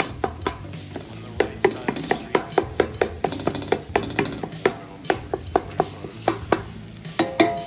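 Flat-bottomed wooden spoon knocking and scraping against a stainless steel pan, about four quick knocks a second, as raw ground beef is chopped up and pressed down. Under it, a light sizzle of the meat starting to boil in its own water.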